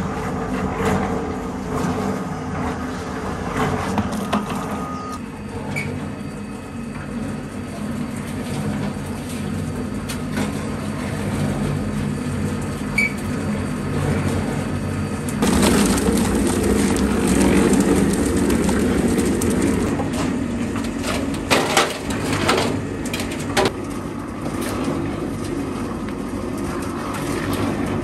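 Belt-driven electric concrete mixer running with grain chicken feed churning in its turning drum, a steady hum and rattle. A little past halfway it gets louder as the drum is tipped and the grain pours out into a wheelbarrow, with a few sharp knocks shortly after.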